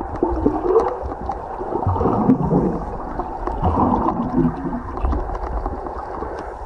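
Muffled underwater gurgling picked up by a submerged camera in a spring, with wavering bubbly sounds, low bumps of water moving past the camera and scattered faint crackles.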